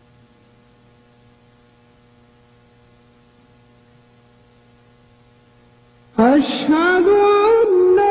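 Faint steady electrical hum from the mosque's microphone system, then about six seconds in a muezzin's amplified voice comes in loud, gliding up into a long, ornamented chanted phrase of the call to prayer (adhan).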